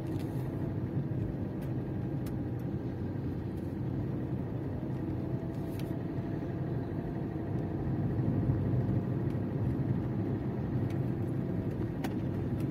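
Car cabin noise while driving slowly at about 35–40 km/h: a steady low rumble of engine and tyres on the road, with a faint hum coming in about halfway.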